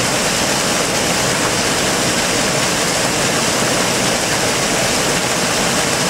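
Fast-flowing stream water rushing steadily over rocks, an even, unbroken noise.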